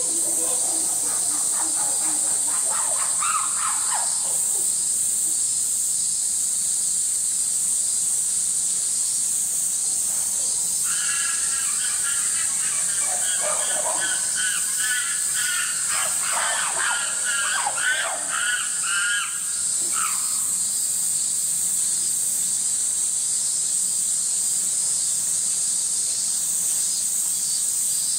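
Steady, high-pitched drone of a cicada chorus. For several seconds in the middle, a rapidly pulsing call rises above it.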